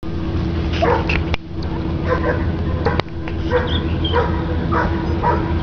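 A dog barking in a string of short barks, about seven, over a steady low hum, with two sharp clicks in between.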